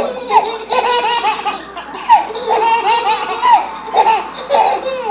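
Baby boys belly-laughing: runs of short, high-pitched laughs, one right after another.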